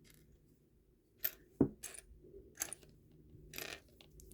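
Small plastic Lego pieces clicking and clattering as they are picked up and pressed together, a handful of sharp clicks, the loudest a knock about a second and a half in.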